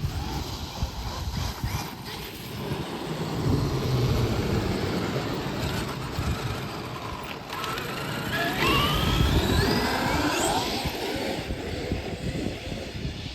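Traxxas XRT RC monster truck driving, with its brushless electric motor whining up in pitch as it accelerates about eight seconds in, over a low rumble from the tyres and drivetrain.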